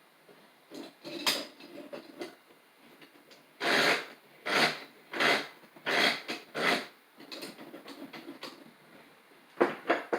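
Bench vise being worked by hand: five short scraping clunks about two-thirds of a second apart, then softer rustling and two sharp clicks near the end.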